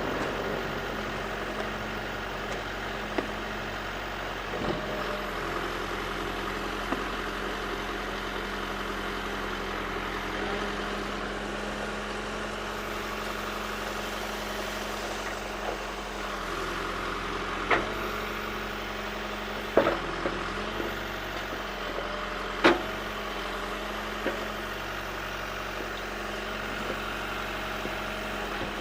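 Backhoe's diesel engine running steadily, with a few sharp clanks from about 17 seconds on, the loudest near the end.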